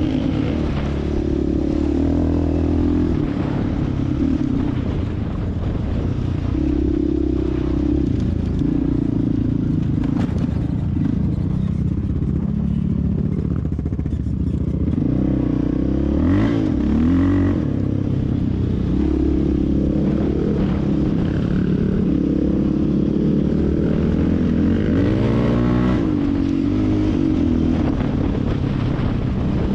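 Yamaha Raptor 660 ATV's single-cylinder four-stroke engine running along a dirt trail, its pitch stepping up and down with throttle and gear changes, with quick revs about halfway through and again near the end. Light clatter from the machine over the rough trail.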